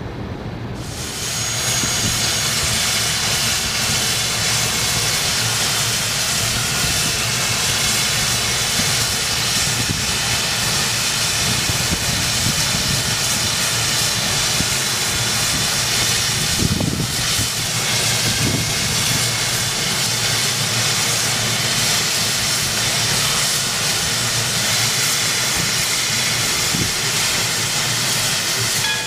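Steam hissing loudly and steadily from CNR 2141, a 1912 Canadian Locomotive Company 2-8-0 Consolidation steam locomotive standing still. The hiss starts about a second in and cuts off just before the end.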